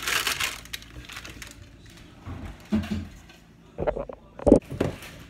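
Kitchen handling noises: a brief rustle, a dull thump in the middle, then a few sharp knocks and clatters about four seconds in, the loudest near the end.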